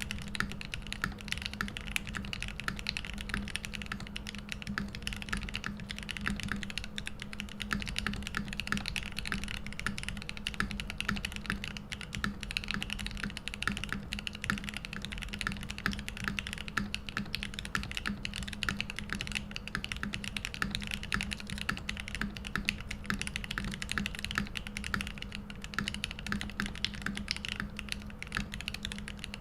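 Steady, fast typing on a Mode80 mechanical keyboard: lubed Gateron Oil King linear switches on a brass plate, with plate and case foam, under OTC Modo Light keycaps, giving a dense, even stream of keystrokes.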